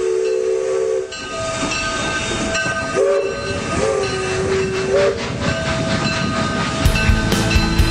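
Train horn sounding a chord of several notes: a long blast, then three more blasts about a second apart, each swelling briefly in pitch, over a steady rumble and hiss. Rock music with a steady beat comes in near the end.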